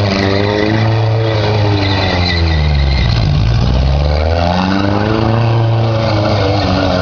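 Engine of a racing vehicle running hard: its pitch drops over the first three seconds as it slows, then climbs again as it accelerates and holds a steady note.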